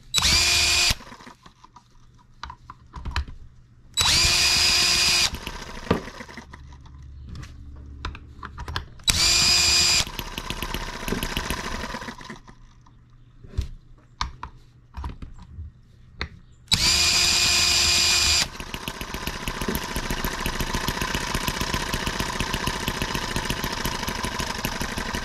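Cordless drill whining in four short bursts as it spins the new M18 model engine over. Between spins the engine fires and runs briefly on its own in fast, even pulses. After the last spin it keeps running for about seven seconds before fading: a hard-starting engine that only catches now and then.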